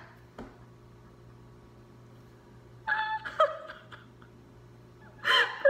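A woman crying with happiness, her hands over her face: a quiet stretch, then a short whimpering sob about three seconds in and a louder sob near the end.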